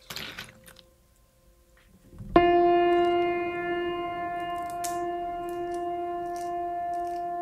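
Cooked crayfish clattering as they are tipped from a wok into a woven bamboo basket, a brief rush of sound at the start. Just over two seconds in, a single held musical note starts suddenly and holds steady as background music, with a few faint clicks of crayfish shell being peeled over it.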